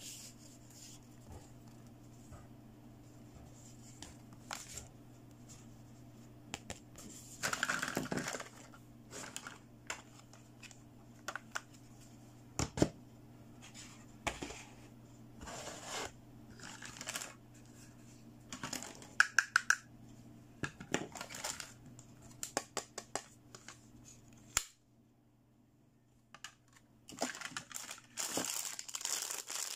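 Hands handling small plastic toy playset pieces: scattered light clicks, taps and rustles, a few sharper taps among them, over a faint steady hum. The hum cuts out briefly, and near the end there is crinkling of a thin plastic bag being handled.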